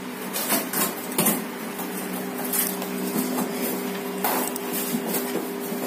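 Steady mechanical hum with several held pitches, broken by irregular clicks and clattering knocks.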